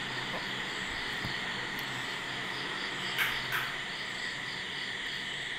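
Steady chirping of crickets, an even, rapidly pulsing trill that carries on without a break, with two short soft noises a little past the middle.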